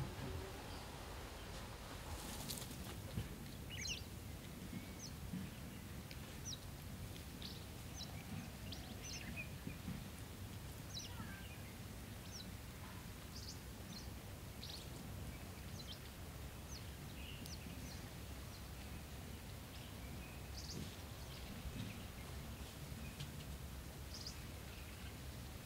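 Low steady background rumble with scattered short, high-pitched animal chirps, about one every second or two.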